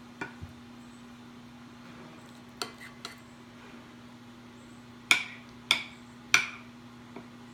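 A utensil clinking against a plate while small piles of street corn are arranged: a few light clicks, then three louder clinks about half a second apart, each ringing briefly. A steady low hum runs underneath.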